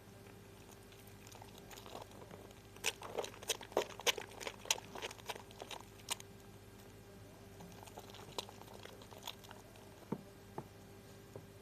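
Harmony lemon bar soap being lathered by hand: wet crackling and squishing of the foam, with a quick run of sharp crackles about three seconds in and scattered single pops after.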